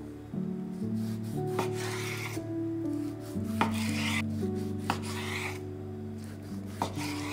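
Chef's knife slicing raw chicken breast fillets into strips on a bamboo cutting board: several drawn, scraping cuts through the meat, with sharp knocks of the blade meeting the board. Soft background music plays throughout.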